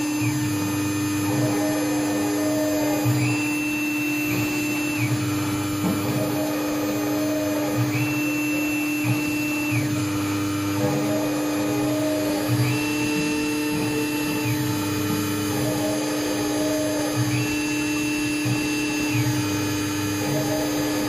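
Mini metal CNC router engraving copper: the spindle hums steadily while the axis stepper motors whine. The whine rises, holds and drops in the same pattern about every five seconds, as the machine repeats its cutting passes.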